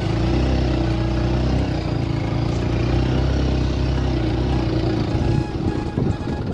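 Motorcycle engine running steadily under way. About five seconds in, the engine note drops away and uneven low knocks take over.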